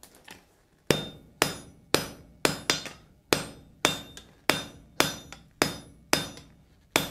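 Hand hammer striking a glowing steel billet on an anvil to set a forge weld at welding heat: a run of about a dozen ringing blows, roughly two a second, starting about a second in.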